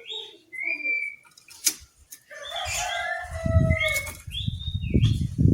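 Oriental magpie-robin (kacer) singing short whistled, gliding phrases. From about halfway the song gives way to loud, low rustling and thumping noise with a few held notes above it.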